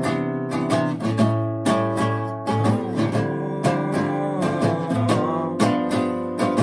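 Acoustic guitar strumming chords in an instrumental passage of a song.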